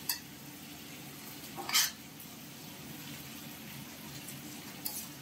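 Vegetables frying in a kadai with a low, steady sizzle, while a utensil knocks and scrapes against the pan: a short click at the start, a louder scrape just under two seconds in, and another click near the end.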